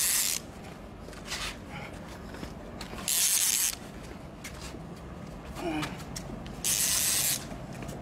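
Three short bursts of loud hiss, each under a second and about three and a half seconds apart, with a brief falling whistle shortly before the last one.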